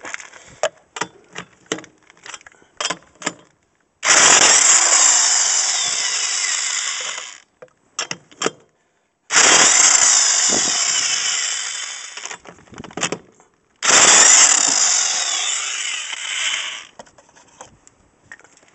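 Impact wrench in reverse hammering lug nuts loose on a car wheel, in three runs of about three seconds each, with short clicks and knocks between them as the socket is moved from nut to nut.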